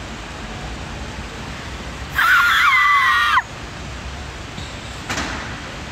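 A woman's short, loud, high-pitched scream lasting about a second, over a steady hiss.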